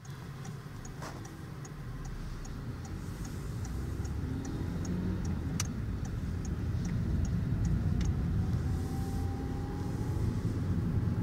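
Engine and road noise inside a moving car's cabin, a low rumble growing louder. A light, regular ticking of about two and a half ticks a second runs over it and stops about eight seconds in.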